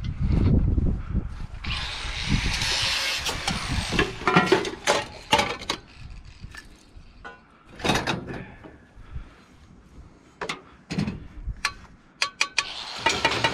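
Scrap being handled and loaded: a rushing, scraping noise for about two seconds, then a run of sharp knocks and clanks, with scattered knocks again near the end.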